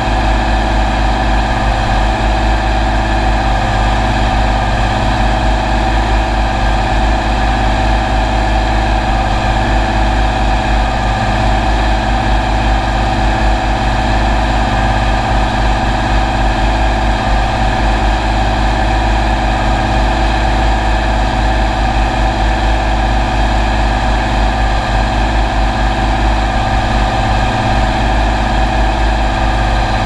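County 1454 four-wheel-drive tractor's diesel engine running steadily under load while pulling a four-furrow reversible plough, heard close up beside the engine. The engine note holds constant throughout.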